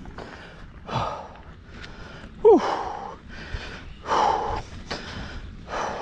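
A mountain biker breathing hard while pedalling, a heavy exhale about every second or so, the loudest one about halfway through with a short falling voiced note.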